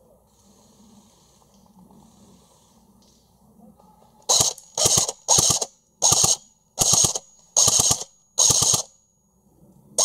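Airsoft gun firing short full-auto bursts: seven quick bursts of a few shots each, starting about four seconds in and coming roughly every two-thirds of a second, with another burst beginning at the very end.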